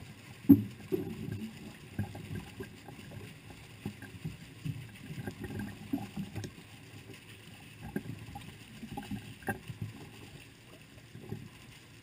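Water splashing and sloshing at the surface as a lake sturgeon swims off, heard from a microphone right at the waterline. The splashes come irregularly, with a sharp one about half a second in.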